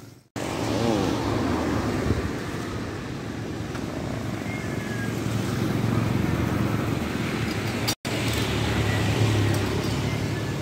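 Steady street traffic noise with the low hum of motor vehicles running. It drops out briefly twice.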